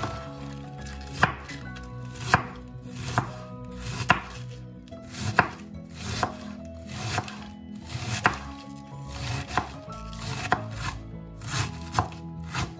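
Large kitchen knife slicing through a head of cabbage and knocking on a wooden cutting board, roughly one chop a second, shredding it.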